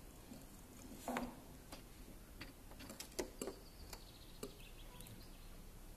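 Irregular small clicks and taps of a budgie knocking a plastic toy about.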